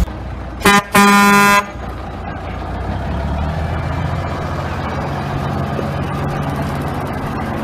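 A truck horn sounds twice, a short toot and then a longer blast, about a second in. Under and after it a heavy truck engine runs with a low steady rumble.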